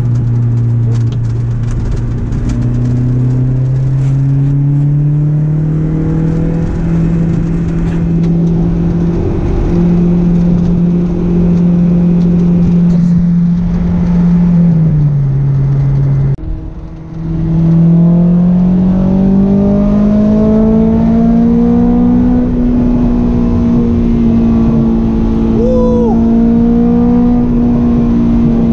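Honda S2000's four-cylinder engine pulling the car along the road, heard from inside the cabin over steady road noise. Its note climbs for the first several seconds and holds, eases off about 15 seconds in, and briefly drops away as at a gear change. It then climbs again and holds steady.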